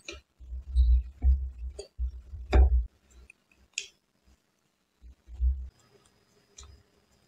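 Close-miked mouth sounds of eating a soft cupcake: a few sharp wet clicks and smacks over low thumps, the loudest smack about two and a half seconds in.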